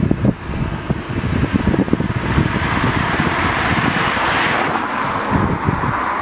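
Wind buffeting the microphone in gusts, with a rushing hiss that swells over a couple of seconds in the middle and then fades.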